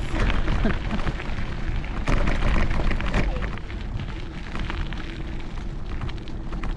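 Wind buffeting the microphone of a camera on a moving bicycle, a steady low rumble, with the bicycle's tyres crunching over a gravel path.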